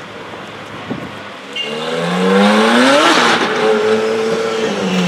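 DMC-tuned Ferrari 458 Speciale A's V8 accelerating hard: the revs climb steeply for about a second and a half, drop sharply at an upshift, then pull again more steadily before fading as the car drives off.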